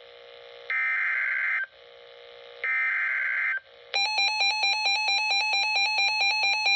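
Weather-radio emergency alert: two screeching digital data bursts of about a second each (the SAME header that codes the severe thunderstorm warning), then about four seconds in a loud, rapidly warbling alert tone from the Reecom weather radio.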